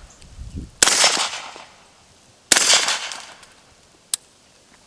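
Two suppressed .300 Blackout rifle shots about 1.7 seconds apart, each a sharp crack followed by a long fading echo; a short click follows about four seconds in.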